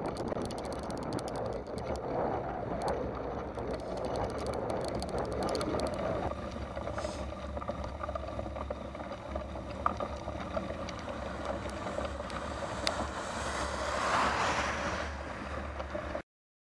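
Wind and wet-tyre rolling noise from a bicycle-mounted camera on a rain-soaked road, with a dense run of clicks and rattles over the first few seconds. The sound stops abruptly near the end.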